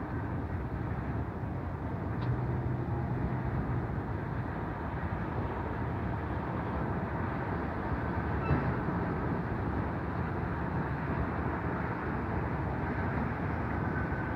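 Steady distant rumble of road traffic and heavy construction machinery, with a brief low hum about two seconds in.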